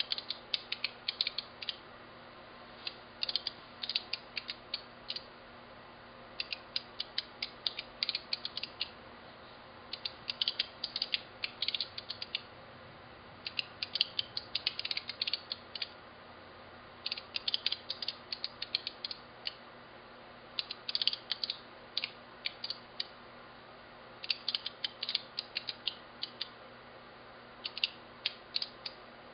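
Signalex electromagnetic flip-segment displays clicking as their segments are flipped one at a time. The clicks come in quick runs of about two seconds with a short pause between, each run rewriting the six digits to a new number.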